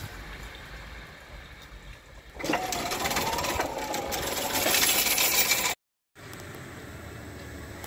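Level-crossing barrier drive running as the booms lift after a train has passed: a mechanical whirr with a wavering hum comes in about two and a half seconds in. It breaks off for a moment shortly before the end, then a steadier, quieter machine sound carries on.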